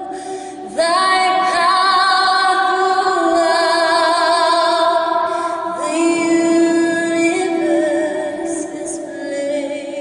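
A woman singing unaccompanied, holding long notes with vibrato, a new phrase starting about a second in. The stone church's strong reverberation carries each note on after she sings it.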